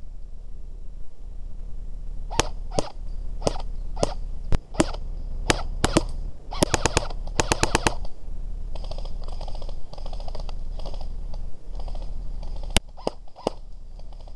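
Airsoft guns firing: a few single snapping shots, then quick bursts of rapid fire about halfway through, fainter bursts after that, and three more sharp shots near the end.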